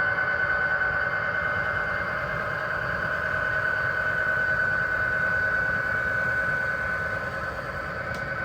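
HO scale model locomotive running on the layout: a steady high-pitched motor and gear whine over a low rumble of wheels on the track.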